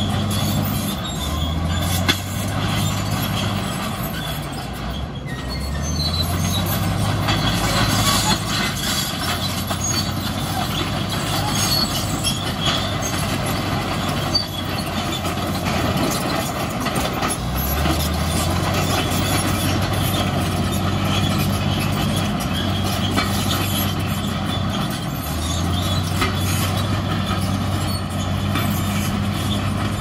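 Crawler bulldozer working: its diesel engine runs under load, its pitch dropping and picking back up several times, while the steel tracks clank and squeal.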